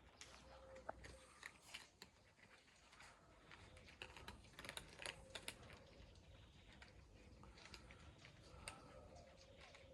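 Cats eating, faint and irregular small crunches and clicks as they chew and pick up food.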